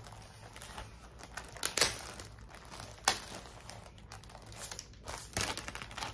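Plastic packaging crinkling and rustling as it is handled, with three sharp clicks standing out.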